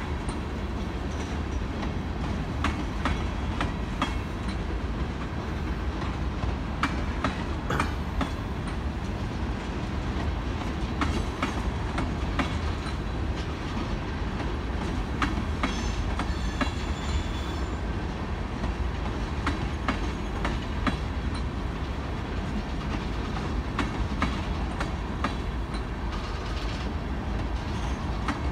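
Tank cars of a manifest freight train rolling past: a steady rumble of steel wheels on rail with irregular clicks and clanks as the wheels cross rail joints. A brief faint high squeal comes near the middle.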